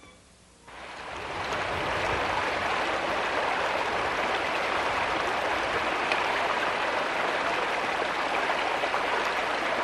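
Rushing water of a stream, fading in under a second in and then running steadily.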